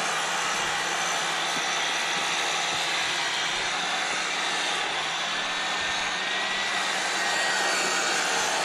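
EGO POWER+ power head running steadily with the 22-inch bristle brush attachment, its electric motor whining as the spinning bristles sweep through dry lawn grass.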